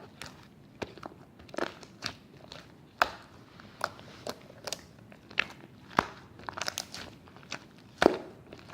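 Slime being kneaded and pressed by hand, giving irregular sharp pops and crackles, with the loudest pops about three, six and eight seconds in.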